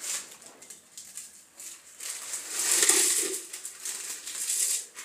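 Plastic instant-noodle wrappers crinkling and crackling as the packets are torn open and handled, loudest between about two and five seconds in.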